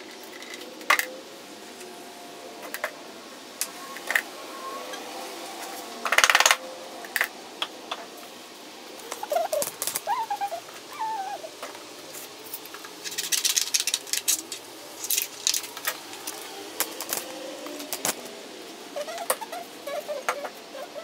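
Small handling sounds on a workbench: scattered clicks, taps and rattles, with a dense rattle about six seconds in and a run of quick clicks around thirteen seconds. A few short squeaky chirps come near ten seconds and near the end.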